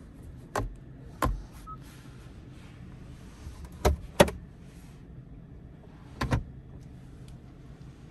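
Sharp clicks and knocks from the cabin controls and trim of a 2023 Genesis G90 being pressed and handled. There are two single clicks in the first second and a half, two more about four seconds in (the second is the loudest), and a quick double click near the end.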